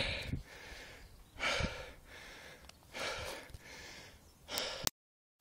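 A runner's heavy breathing: a loud, rushing breath about every one and a half seconds, cut off suddenly near the end.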